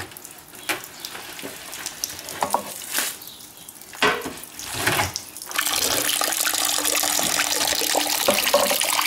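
Wet grape skins scooped and scraped about inside a stainless steel fermenting drum, with scattered knocks. A little over halfway through, a steady splashing flow of new red wine starts, running down a metal chute into a stainless steel pot.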